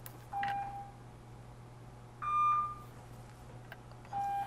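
Three short electronic beeps, a low one, a higher and louder one about two seconds in, then a low one again near the end, over a steady low hum.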